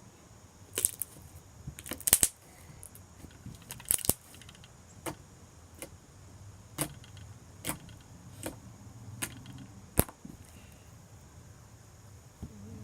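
Slime being squished and worked by hand, giving sharp pops and clicks at irregular intervals as air bubbles in the crunchy, bubbly slime burst.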